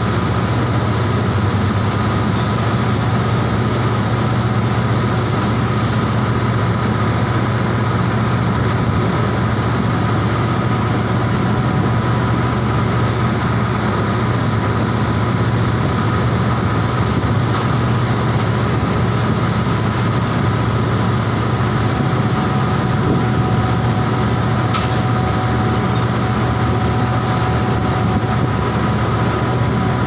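Floating crane's engine and machinery running steadily: a constant loud low drone with a couple of thin, steady whining tones above it.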